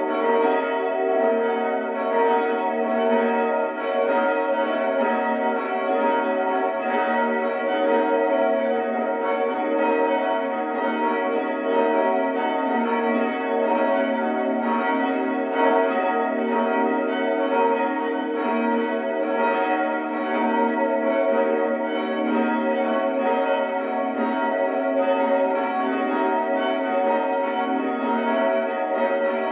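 Church bells pealing: several bells ringing together in one continuous, overlapping peal at an even loudness.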